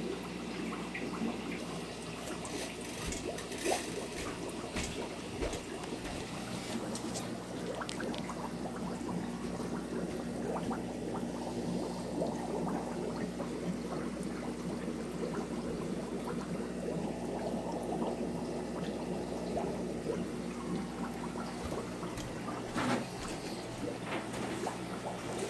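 Aquarium filtration running in a fish room: steady trickling and bubbling water from the tanks' filters, over a low steady hum.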